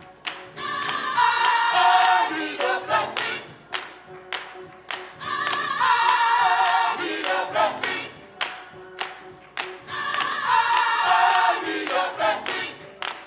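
Choir singing a gospel song, the same sung phrase coming round about every four and a half seconds, over a steady percussive beat.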